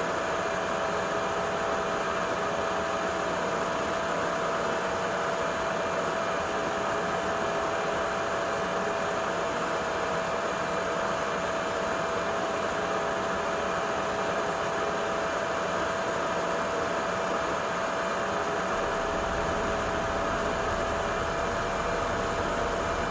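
Xiaomi Shunzao Z11 cordless stick vacuum cleaner running steadily: an even rush of air with a steady whine from the motor.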